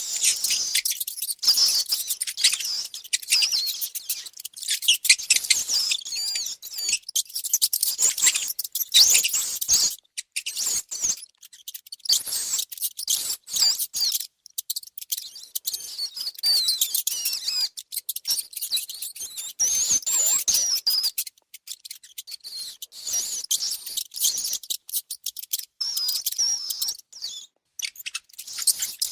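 Mice squeaking in a fast stream of high, wavering chirps, mixed with many small clicks and scratches, broken by a few short pauses.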